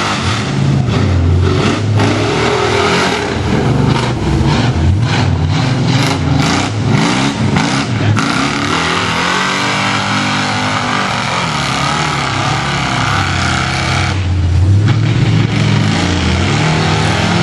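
Lifted Chevy S-10 mud truck's engine revving up and down as the truck churns through deep mud. There is a run of sharp knocks a few seconds in, the engine eases off about halfway, then it revs up again near the end.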